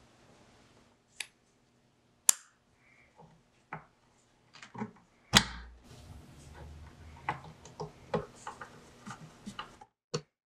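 Small brass telephone hardware being handled and fitted onto a wooden backboard: a series of sharp clicks and taps, the loudest a knock with a dull thud about five seconds in, then quicker small clicks as a screwdriver drives the fitting's screw near the end.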